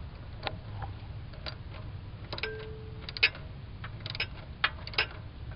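Half-inch hand ratchet clicking in short, irregular strokes as it tightens a turbo oil-feed banjo bolt.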